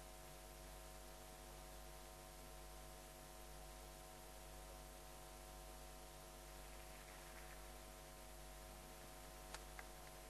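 Near silence: a faint steady electrical hum, with two faint clicks near the end.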